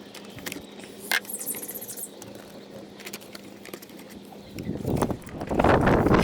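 Hand work on engine-bay parts: scattered light clicks and taps, then from about five seconds in a loud, continuous rattling and scraping as the parts are handled.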